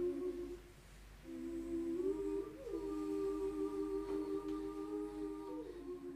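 Slow hummed notes in close harmony, two or three pitches held together. They break off briefly about a second in, then return, sliding up in pitch around the middle and again near the end.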